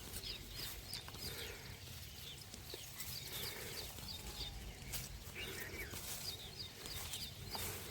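Small birds chirping in quick repeated series of short high notes, over a low steady rumble.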